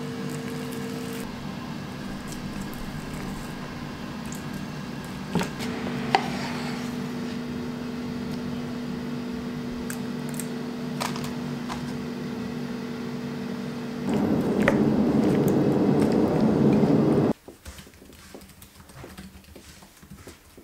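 A steady hum with a few light clicks and knocks. About two-thirds of the way through, a louder rushing noise takes over for about three seconds, then cuts off suddenly to faint room tone.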